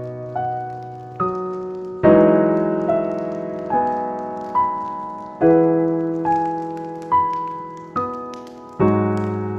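Slow, calm solo piano playing broken chords, a new note struck about every second, each one ringing and fading. Faint crackling of a wood fire sits behind it.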